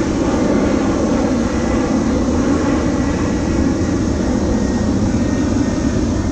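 Airplane flying low overhead: loud, steady engine noise that eases slightly near the end.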